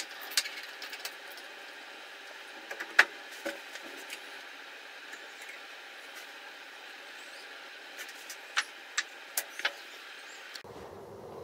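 Scattered sharp metallic clicks and knocks from the segmented fence plates of a spindle moulder being slid and set by hand over a steady faint hiss; the loudest click comes about three seconds in, and a quick run of four near the end.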